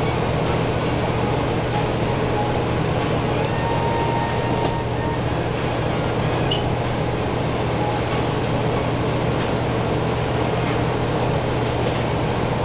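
Steady hum and hiss inside a Saemaul train passenger car standing still before departure, from its air conditioning and onboard power equipment. A few faint clicks can be heard over it.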